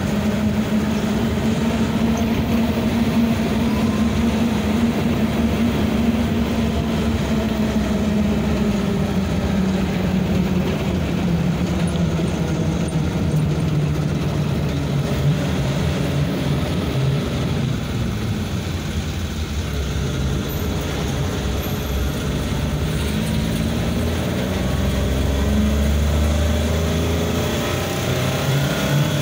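Pickup truck engine running steadily under way, heard from the open cargo bed with road and wind noise. The engine note sinks lower partway through and climbs again near the end.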